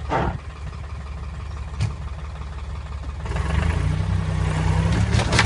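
A vehicle engine running steadily, growing louder and heavier about three seconds in, with a single sharp knock just before that.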